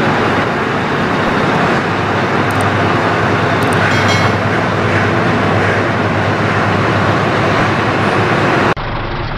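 A steady, loud heavy-vehicle engine sound with a constant low hum, the kind of truck engine noise laid over a toy dump truck driving through mud. It cuts off suddenly near the end.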